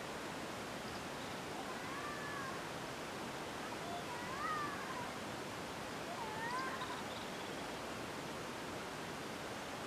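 Three short animal calls, each rising then falling in pitch, about two seconds apart, over a steady hiss.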